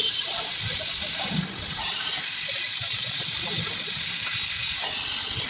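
Gas welding torch flame giving a steady hiss while aluminium engine parts are welded.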